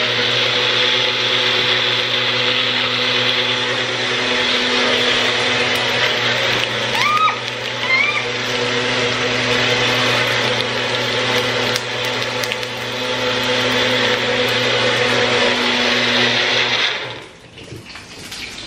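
Countertop kitchen blender running steadily, grinding ingredients with water into a sauce, then switched off about a second before the end.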